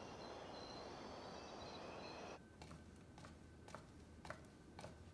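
Near silence: a faint hiss that cuts off suddenly about two seconds in, then quiet room tone with a few scattered faint clicks.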